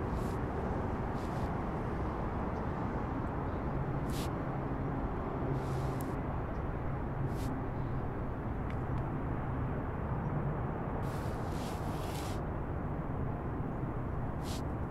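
Steady low rumble of wind and distant city traffic, with a few short scuffs of sneakers on the paving at irregular moments.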